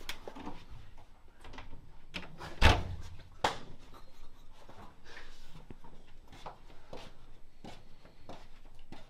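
Scattered knocks and thuds, the loudest a sharp bang about two and a half seconds in and another about a second later.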